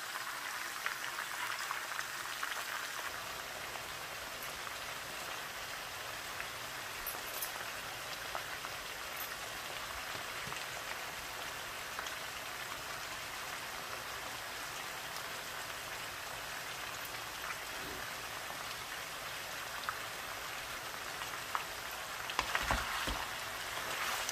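Diced boiled pork frying in hot oil in a pan: a steady sizzle with light crackles as its water cooks off. A few louder knocks near the end.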